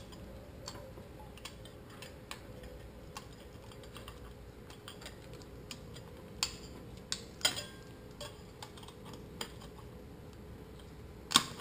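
Light, scattered metallic clicks and ticks of a snap ring being worked by hand into its groove on an automatic transmission clutch drum, with the piston return spring held compressed. A sharper click comes near the end.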